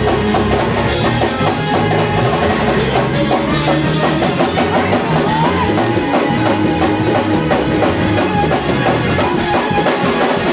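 Live church band playing a loud, steady praise break, led by a drum kit with a moving bass line.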